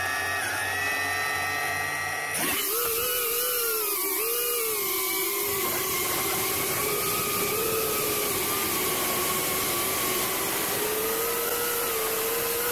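FPV cinewhoop drone's brushless motors and ducted propellers whining, spinning up louder about two seconds in. The pitch wavers, then climbs slowly near the end as the throttle rises.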